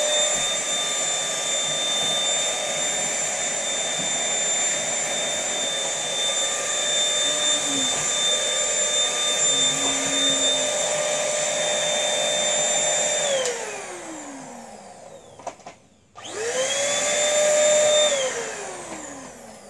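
Mini Dirt Devil handheld vacuum running with a steady high whine and hiss. It is switched off about two-thirds of the way through and its pitch falls as the motor winds down. It is then switched on again briefly, whining up to speed, and switched off, winding down once more near the end.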